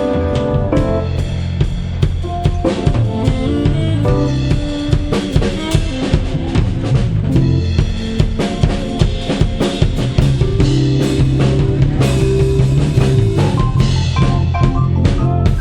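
Live band music with a busy drum kit, bass drum and snare hits, driving over bass and sustained melodic instrument notes.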